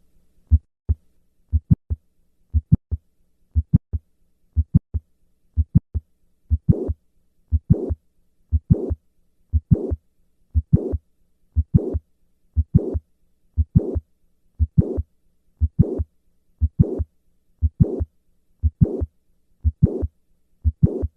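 Heart sounds at about one beat a second: the mid-systolic click and late systolic murmur of mitral valve prolapse. For the first few seconds the beats are sharp, separate sounds. From about six seconds in, a harsh murmur joins each beat.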